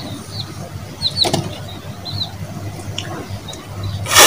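Short, falling bird chirps over a low steady hum, then near the end a loud spray of water blown from a person's mouth over an Aseel rooster to cool it against the heat.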